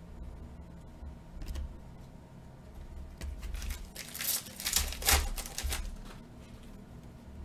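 Trading cards flicked through in the hands with small clicks, then a foil card-pack wrapper crinkled and torn open in a loud burst of crackling about three and a half to five and a half seconds in.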